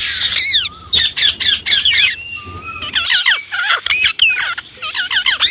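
Indian ringneck parakeet giving rapid runs of short, shrill squawks, each call sliding sharply in pitch.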